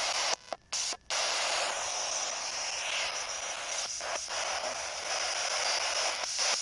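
Spirit box sweeping the FM band: a steady static hiss that cuts out twice in quick succession in the first second.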